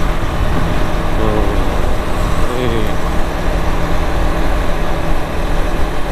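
Honda CBR150R single-cylinder motorcycle engine running steadily while cruising at about 50 km/h, mixed with heavy wind rumble on the bike-mounted camera's microphone.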